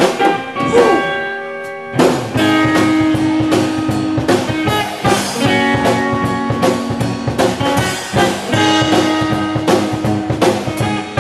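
Live band playing an instrumental passage with drum kit and guitar. The drums and bass drop out for about a second, then the full band comes back in at about two seconds in, with a steady drum beat under held notes.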